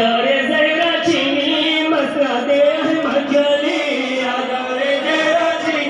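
Several men chanting a nauha, a Shia mourning lament, together through microphones in a sustained, melodic recitation.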